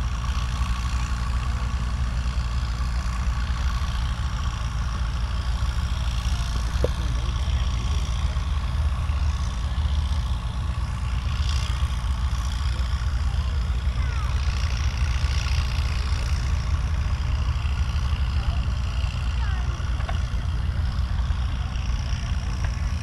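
Tractor engine running steadily at low speed, a deep even drone with no revving.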